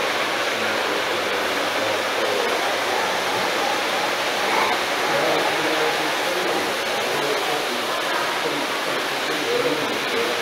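Steady rushing background noise with faint, indistinct voices mixed in.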